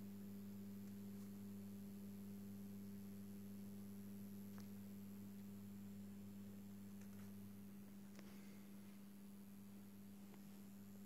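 Faint, steady low electrical mains hum from a running 400 W probe-start metal halide lamp and its ballast, with a couple of faint ticks partway through.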